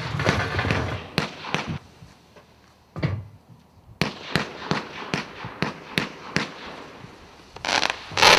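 Fantazia category 3 firework cake firing. It gives a string of sharp shot bangs, about two a second through the middle, then a dense flurry of crackling breaks near the end, which is the loudest part.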